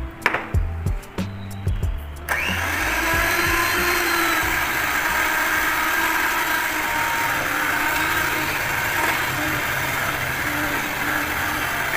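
Background music with a beat, then about two seconds in an electric hand mixer switches on and runs steadily, its beaters whisking cake batter in a stainless steel pot.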